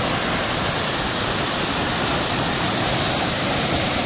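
Waterfall cascading over rock and splashing into a shallow stony pool: a steady, unbroken rush of falling water.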